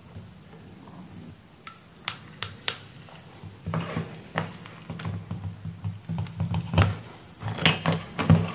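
Irregular clicks and knocks of plastic plugs, cables and multimeter probes being handled and set down on a workbench, thicker in the second half, over a low steady hum.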